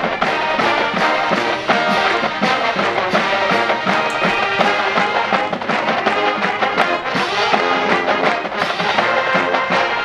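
College marching band playing a loud, up-tempo tune, brass over a steady drum beat.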